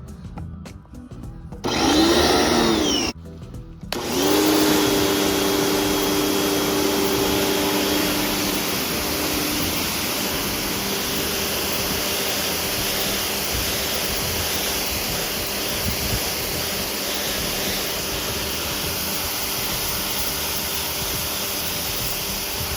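Chemical Guys ProFlow PM2000 electric pressure washer: its motor runs briefly about two seconds in, pitch rising and falling, stops, then starts again about four seconds in and runs steadily with the hiss of the spray. It is not too noisy.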